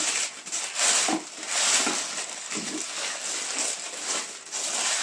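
Crinkly silver present wrapping rustling and crackling in irregular surges as it is pulled open by hand.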